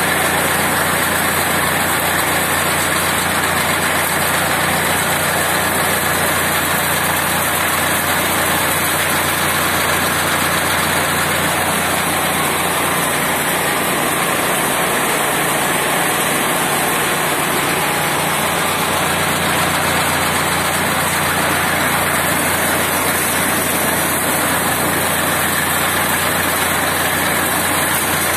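Tractor engine running steadily at a constant speed, driving a PTO chaff cutter, as a continuous even machine hum.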